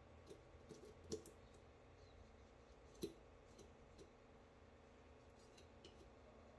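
Knife cutting into a raw whole chicken being deboned: faint scattered clicks, with two sharper ticks about a second in and about three seconds in.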